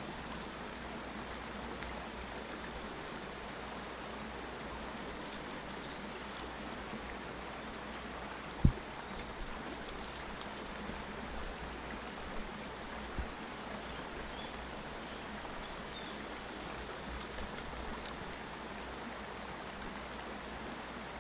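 River water flowing steadily, with a single sharp knock about eight and a half seconds in and a smaller one a few seconds later.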